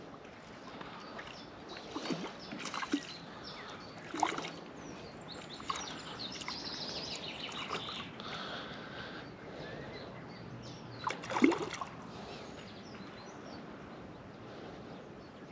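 Hooked needlefish splashing and thrashing at the water's surface while being played in, a series of short splashes over a low lapping of water, the biggest splash about eleven seconds in.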